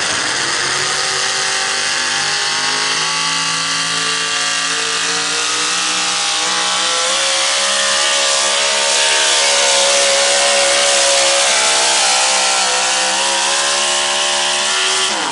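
Modified 4x4 pulling truck's engine running at full throttle and high revs while dragging the sled, the pitch climbing slowly then sagging. Right at the end the throttle lifts and the engine note drops off sharply.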